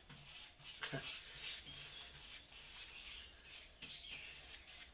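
Faint birds chirping in the background, with a few soft ticks and rustles close by.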